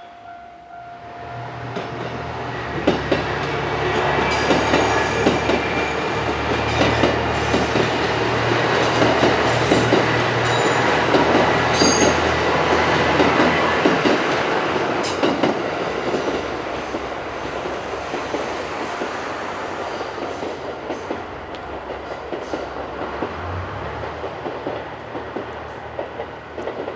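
Hamakaze limited-express diesel train passing close by, its diesel engines humming under a clatter of wheels clacking over the rail joints. The sound builds to a peak about halfway through and then fades as the train moves away.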